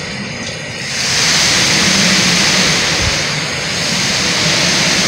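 Hurricane wind gusting hard, a steady rushing roar that swells about a second in and stays loud.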